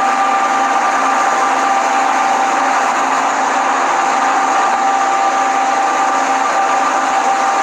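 Boat engine running steadily under way: a constant mechanical drone with a steady whine over a wide hiss.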